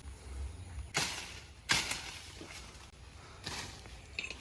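Three sharp hits, about a second in, just under two seconds in and near three and a half seconds, the first two the loudest, each dying away quickly.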